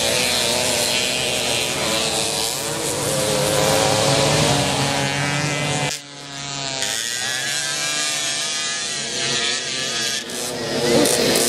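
Small moped engines buzzing as they race past on a dirt track, pitch rising and falling with the throttle. The sound drops out briefly about six seconds in, then the engines come back revving.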